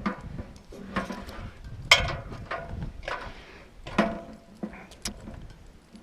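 Irregular metallic clanks and clinks, some ringing briefly, over a low handling rumble: climbing hardware and boots knocking against a steel radio tower at the start of a climb.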